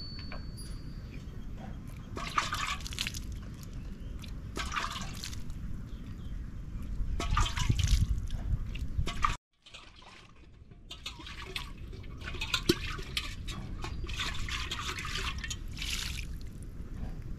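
Cow being milked by hand into a steel pot: streams of milk squirt into the metal vessel in short hissing bursts every couple of seconds, over a steady low rumble.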